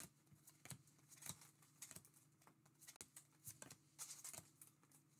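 Faint, irregular flicks and ticks of baseball trading cards being slid one by one off a hand-held stack, over a faint steady low hum.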